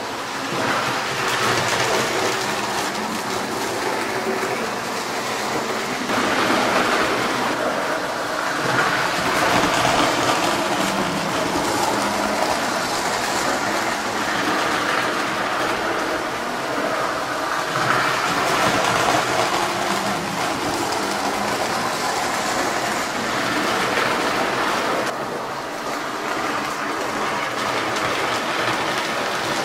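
Lionel postwar toy trains running on three-rail metal track: a continuous rumble and rattle of small metal wheels on the rails, rising and falling in level as the cars pass.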